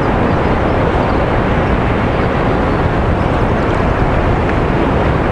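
Steady wind buffeting the camera microphone on a kayak at sea: a constant low rumbling rush with no breaks.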